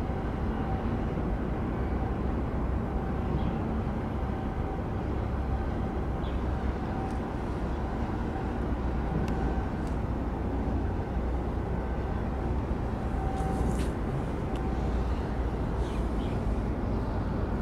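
Steady low rumble with a faint steady hum from a large container ship's engines and machinery as it passes close by.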